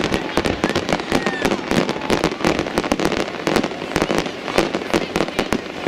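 Aerial fireworks display: shells bursting in a dense, unbroken barrage of sharp bangs and crackling, many a second.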